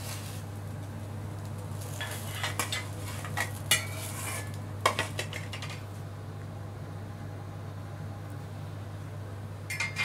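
Metal utensil scraping and clinking against a tawa and a plate as a crisp pancake is folded and served: scattered knocks and scrapes from about two to five seconds in, and again near the end. A steady low hum runs beneath.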